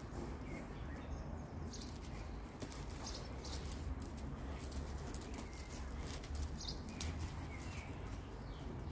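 Two dogs moving about on gravel in quiet play: scattered light clicks and scuffs of paws and a trailing leash over a low steady rumble, with faint dog sounds now and then.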